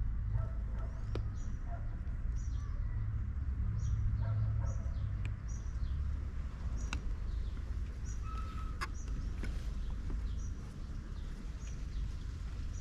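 A small bird chirping over and over, a short high call one or two times a second, over a steady low rumble, with a few sharp clicks.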